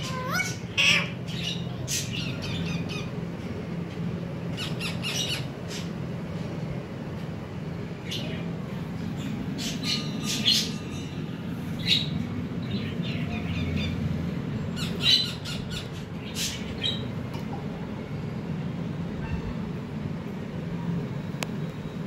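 Ringneck parakeets giving short, sharp squawking calls in scattered clusters every second or two, thinning out near the end, over a steady low hum.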